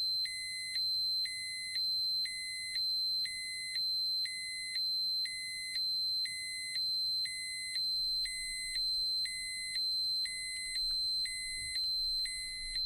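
Radiation dosimeter alarm: a steady high electronic tone with a lower tone cutting in and out about once a second, making an even, pulsing two-tone beep. The alarm warns that a set radiation dose or dose-rate threshold has been passed.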